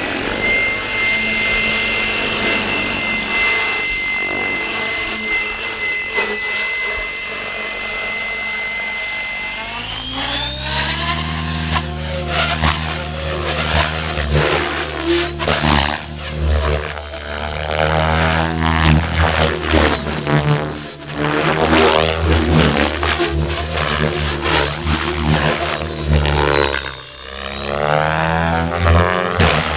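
Align T-REX 700X electric RC helicopter: a steady high whine that glides up in pitch about ten seconds in. Then loud rotor blade noise surges and drops again and again as it flies hard aerobatics.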